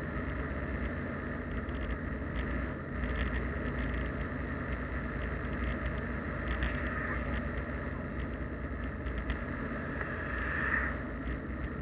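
Steady road noise and engine rumble inside a moving car, picked up by a dashcam. An oncoming car swishes past near the end.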